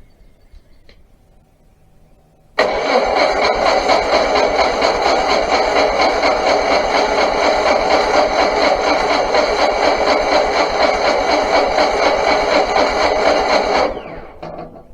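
The sawmill's Onan engine is cranked over for about eleven seconds without firing. The cranking starts and stops abruptly. The engine is not getting gas.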